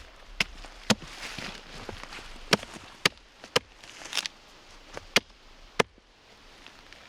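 Axe chopping into the face of a split log, about eight sharp irregular strikes, hewing the rough split surface flat.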